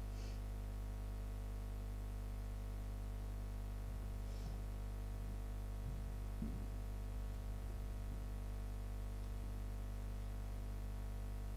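Steady electrical mains hum over a quiet room, with a few faint brief sounds about halfway through.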